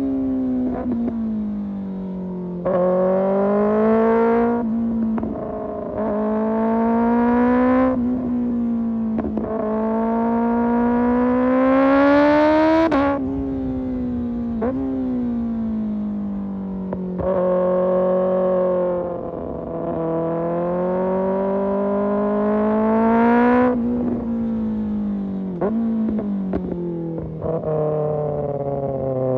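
Kawasaki ZX-6R inline-four sport bike engine through an Arrow Pro Race exhaust, accelerating hard: the pitch climbs again and again and falls suddenly with a short crack at each upshift. In between, there are stretches of easing off with the pitch sliding down.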